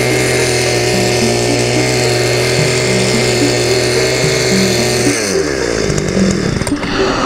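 Carver T-300 mini cultivator's small two-stroke petrol engine running at high revs as its tines work hard, compacted path soil. About five seconds in, the throttle is released and the engine winds down.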